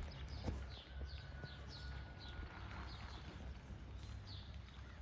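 Low, steady rumble of a tractor engine going by at a distance, with small birds chirping over it in quick, repeated falling notes.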